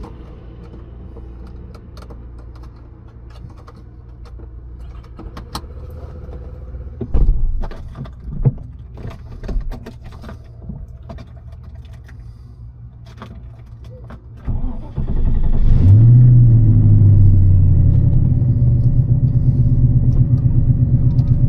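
Clicks and rattles of handling over a low rumble. About two-thirds of the way through, the TVR Chimaera's 4.65-litre Rover V8 is cranked and catches, flares up in revs, then settles into a loud, fast-pulsing idle.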